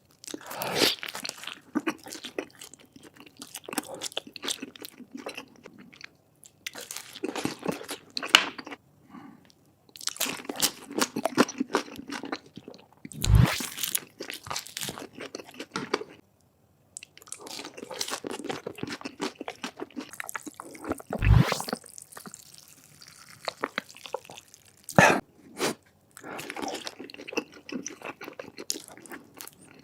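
Close-miked eating: crunchy bites and chewing in runs broken by short silences, with a few sharper, louder crunches standing out.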